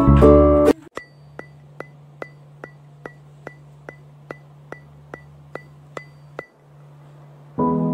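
Evenly spaced sharp ticks, about two and a half a second, each with a short ring, over a low steady hum; the hum stops and the ticking ends near two-thirds through. Plucked background music plays briefly at the start and comes back near the end.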